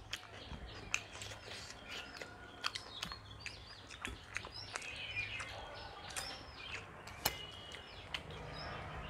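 Small birds chirping on and off in the background, with scattered soft clicks from eating by hand at plates and bowls.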